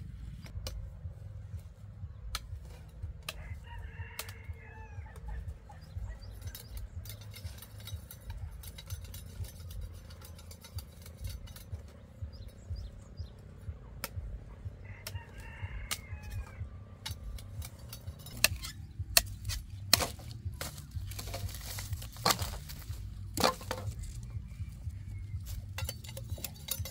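A rooster crows twice, about twelve seconds apart. From about two-thirds of the way in comes a run of sharp knocks and cracks from sugarcane stalks being handled and cut, louder than the crowing.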